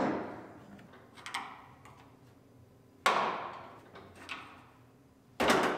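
Clips of a pickup's bed rail cap snapping loose as the cap is pried up with a screwdriver: a sharp snap at the start and a louder one about three seconds in, each ringing away over a second or two, with fainter clicks between.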